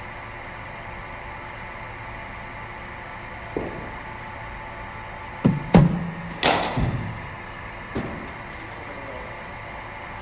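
Over a steady machine hum, a cricket ball is fired from a bowling machine and struck by a bat with a sharp crack, followed by several more knocks and thuds as the ball carries on and lands.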